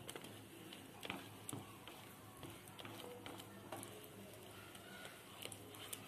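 Wooden spatula stirring thick mango purée in a pan: faint soft scrapes and a few light taps against the pan, over a low steady hum.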